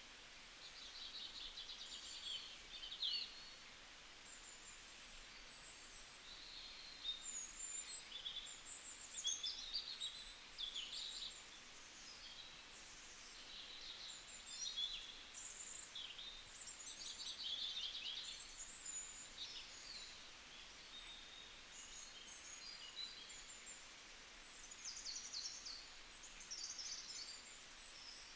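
Several small birds singing and chirping, with quick high trills and calls overlapping throughout, over a faint steady background hiss.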